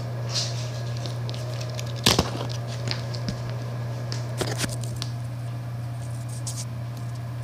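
Handling and rummaging noises while searching for a diecast car: scattered clicks and knocks, the loudest about two seconds in, over a steady low hum.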